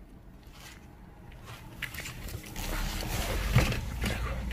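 Soft rustling and handling noises with a low rumble, starting quietly and building about two and a half seconds in, with a few faint knocks.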